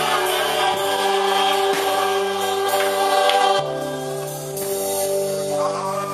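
Voices singing a gospel worship song over sustained instrumental chords, with the chord changing a little past halfway.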